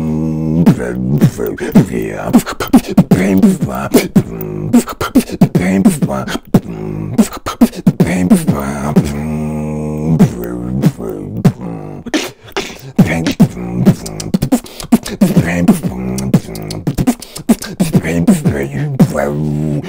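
Solo vocal beatboxing: a fast run of sharp percussive mouth sounds, with held, pitched hummed notes woven in between the beats.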